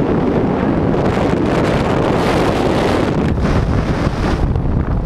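Loud, unbroken wind rushing and buffeting over the microphone of a body-mounted camera during a fast fall on a cable-controlled jump from a tower.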